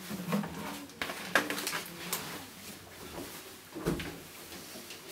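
Scattered knocks, clicks and rustling of an acoustic guitar being picked up and handled as the player settles in, in a small tiled bathroom. The loudest knocks fall about a second and a half in and just before four seconds, the second with a low thud.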